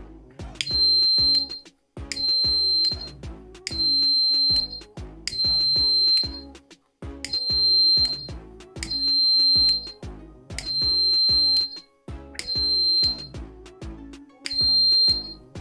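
Piezo buzzer on a home-made fire-alarm circuit sounding its alarm: a shrill high tone in repeated beeps, nine of them, each lasting most of a second, about one every one and a half seconds, over background music.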